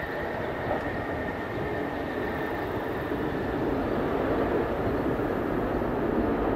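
Boeing 787 airliner's jet engines, a steady rushing noise with a faint high whine that fades away over the first few seconds.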